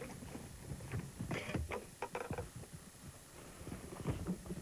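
Scattered knocks and bumps of an angler moving about on a bass boat's deck, a cluster of sharp ones from about a second in and more near the end.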